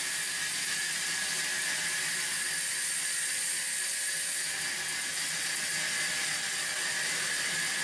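Band saw running with a steady whir and hiss.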